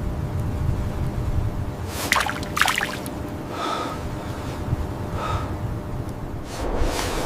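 Steady low wind rumble on the microphone, with two quick sharp intakes of breath about two seconds in and two softer breaths a little later.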